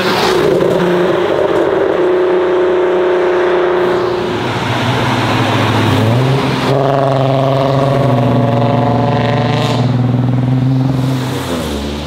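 Performance Volkswagen Golf engines running loud at high revs in two stretches: one note held steady for about four seconds, then a second rising in pitch, held high and falling away near the end.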